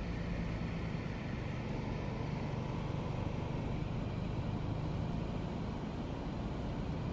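Steady low rumble of a car driving on a highway, heard from inside the cabin: engine and tyre noise on asphalt.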